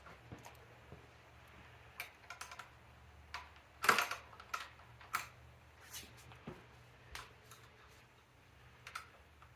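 Irregular light clicks and taps of hand tools working on e-bike parts, with a louder cluster of clatter about four seconds in.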